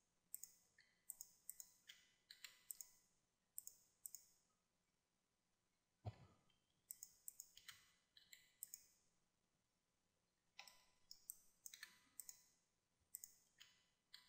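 Faint clicks of a computer mouse and keyboard, coming in short clusters with pauses between them, with one heavier click about six seconds in.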